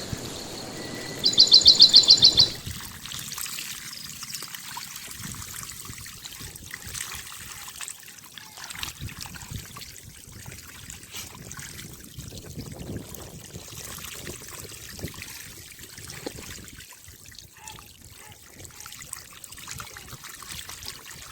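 Water trickling and lapping steadily, with faint scattered splashes. About a second in, a loud, high, rapid chirping trill lasts for about a second and a half.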